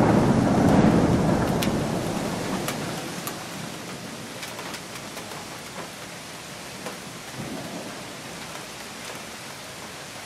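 Thunder rumbling loudly and dying away over the first few seconds, leaving steady rain falling with scattered drops ticking.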